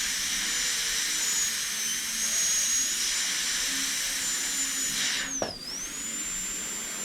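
A machine's electric motor running with a steady hiss and a high thin whine; about five and a half seconds in there is a click and the whine dips sharply in pitch and climbs back.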